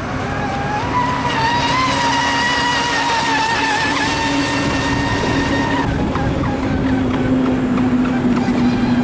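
Triton RC speedboat running fast across the water. Its high, steady motor whine rises slightly at first and cuts off about six seconds in, over a hiss of spray and a lower steady hum.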